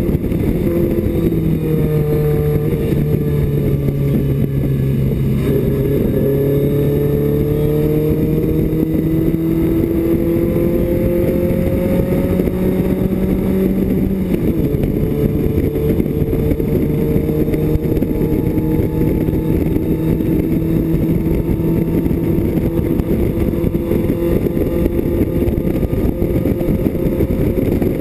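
BMW 2002's four-cylinder engine pulling hard, heard from inside the race car's cabin, its note climbing slowly and dropping briefly about a second in and again around halfway through.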